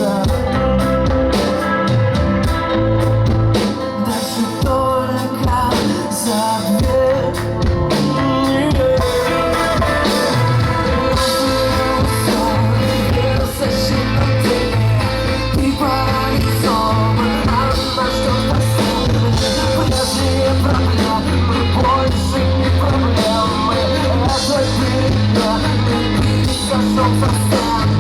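Live rock band playing a song with singing, over a steady low bass line and drums.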